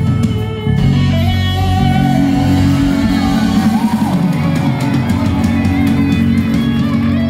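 A live rock band playing: electric guitar and bass guitar over a drum kit.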